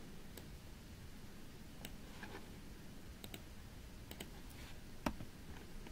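Faint computer mouse clicks, about nine scattered irregularly, the loudest about five seconds in, over a low hiss.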